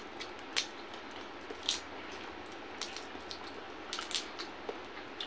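Cooked shrimp being peeled by hand: scattered small crackles and snaps of the shell being pulled apart, spread irregularly over a few seconds.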